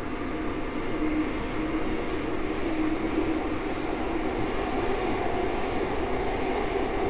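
Seoul Subway Line 9 train running, heard inside the carriage: a steady rumble and hiss with a faint whine.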